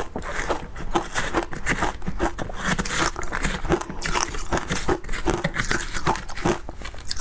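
Crunching and chewing of frozen matcha and milk-powder shaved ice, with a metal spoon digging and stirring through the ice, giving a steady stream of sharp crackles.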